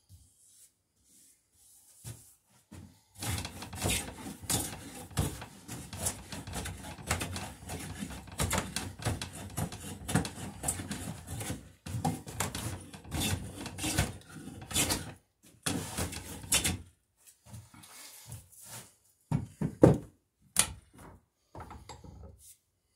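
Hand plane shaving wood clamped in a bench vise, in repeated strokes for about thirteen seconds. Scattered knocks and taps follow, one sharp knock near the end.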